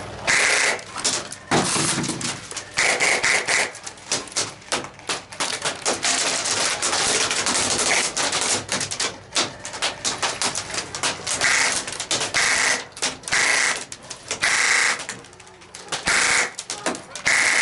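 Airsoft gunfire: dense rapid cracks and clicks from several airsoft rifles firing, with repeated short bursts of about half a second to a second, several close together in the second half.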